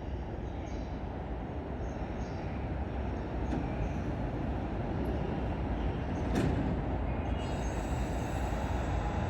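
E233-5000 series electric train pulling out of a station: a steady low rumble that slowly grows louder, a single sharp click about six seconds in, then a high electric motor whine coming in near the end as it starts to gather speed.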